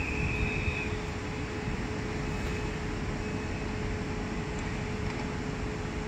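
Siemens ES64U4 (EU44) electric locomotive standing or just starting off, its electrical and cooling equipment giving a steady hum with a steady whine; a higher tone stops about a second in.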